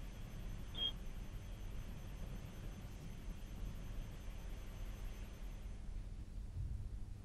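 Faint line noise on a telephone link: a low mains hum with a thin, steady high whine that stops about six seconds in, and one short high beep about a second in.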